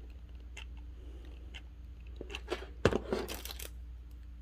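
Hands working a hot glue gun and a small wooden birdhouse block: a few faint clicks, then sharper knocks and a brief crunchy rustle about three seconds in.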